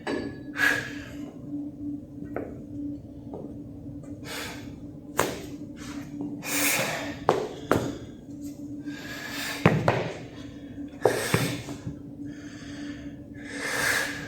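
A weightlifter breathing hard, with forceful hissing exhalations about every two to four seconds. Several sharp clanks of gym equipment come in between them.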